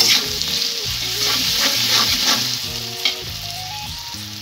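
Spiced diced potatoes sizzling in hot oil in a metal kadai while a metal spatula stirs them, scraping against the pan several times. The stirring stops about three seconds in, leaving the sizzle alone and a little quieter.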